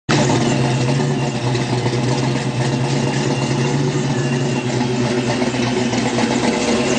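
Supercharged 1987 Ford Mustang GT's 5.0 L V8 idling steadily through its exhaust, with a faint high whine above it.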